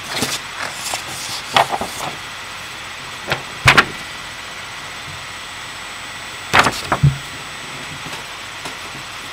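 Scattered knocks and bumps from the camera being handled and moved about, the loudest a double knock a little under four seconds in, with a few more about seven seconds in, over a steady background hiss.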